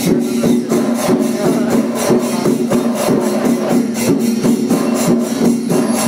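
Loud festival music: dense, rapid drumming over steady held pipe notes.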